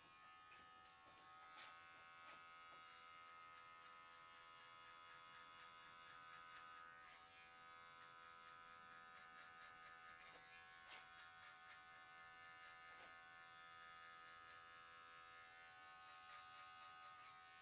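Electric hair clipper running steadily with a faint, even buzz as it cuts a fade, with a few light ticks from the blade and comb against the hair.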